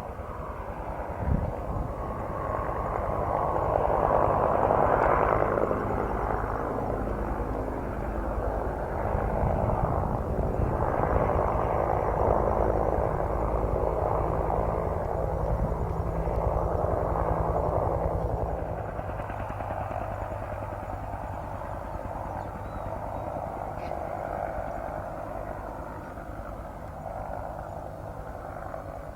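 Bell UH-1 Huey helicopter running, its rotor beating rapidly under a steady turbine drone. The sound swells and fades in waves, then eases off somewhat in the last third.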